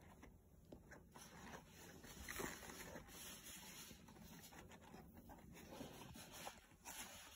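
Near silence with faint rustling and small taps of a cardboard skincare box being handled and its tray slid out.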